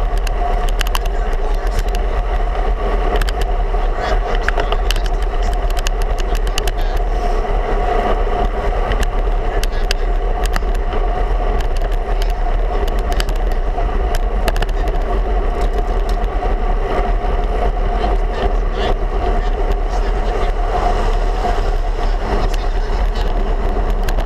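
Steady rushing wind and tyre noise from a road bike rolling along at speed, heard on a handlebar-mounted camera, with scattered light clicks and rattles from the rough, cracked pavement.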